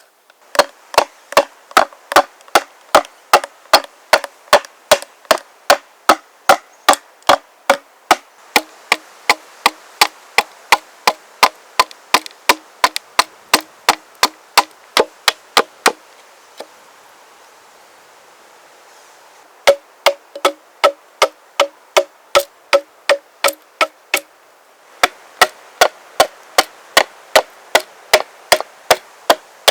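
An axe striking wood in a steady run of short, ringing strokes, about two to three a second, as a shield board is hewed and shaped. The strokes pause for a few seconds about halfway through and briefly again near the end.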